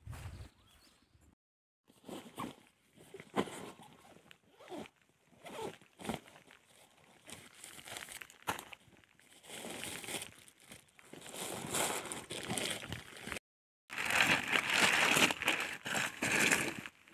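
Irregular rustling and crinkling with scattered clicks and knocks, twice cut off abruptly to silence; loudest near the end.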